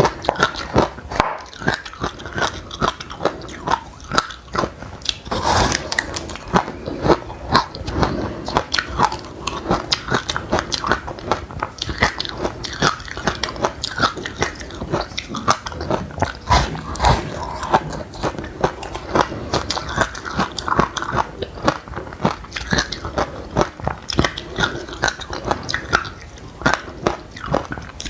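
Continuous close-up crunchy chewing of chilli seeds and buckwheat, with many short sharp crunches several times a second.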